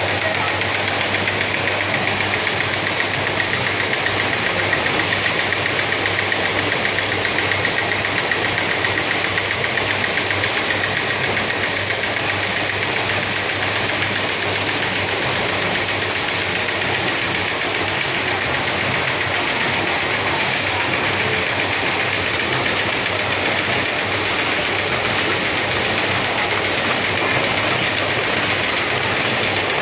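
Automatic packaging line running: labeling and horizontal cartoning machines with their conveyors, a steady mechanical whir over a low hum, with a fast, even ticking.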